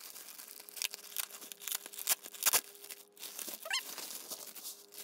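Clear plastic zip-top bag crinkling and rustling as it is pulled open and handled, with scattered sharp clicks and a short rising squeak about three and a half seconds in.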